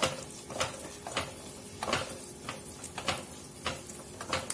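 Metal spatula stirring thick biriyani masala in a nonstick kadai, scraping and tapping the pan in a steady rhythm of a little under two strokes a second, with the masala frying quietly underneath.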